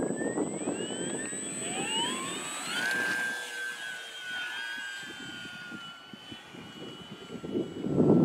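Electric motor and propeller of a FlightLine F8F Bearcat model warbird spooling up on the takeoff run, its whine rising steeply in pitch for about three seconds. It then holds a steady, slowly fading whine as the plane climbs away. Wind rumbles on the microphone at the start.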